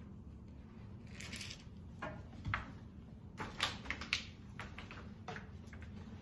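Handling noise close to the microphone: a scatter of sharp clicks and knocks with a short rustle about a second in, as people move right by the recording device and handle things.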